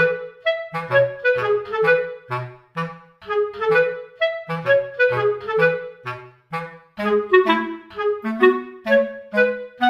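Background music: a bouncy tune of short, detached melody notes over a plodding bass line, in a steady rhythm.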